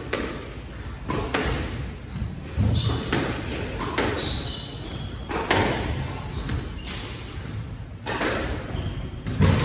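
Squash rally: the ball smacking off rackets, the walls and the floor in sharp hits spaced irregularly under a second apart, echoing in the enclosed court, with short high shoe squeaks on the wooden floor between hits.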